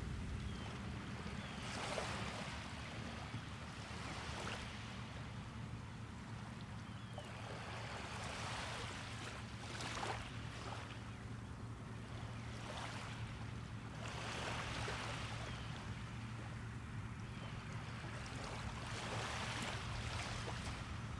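Small ocean waves breaking and washing up the beach, swelling and fading every few seconds, over a steady low hum.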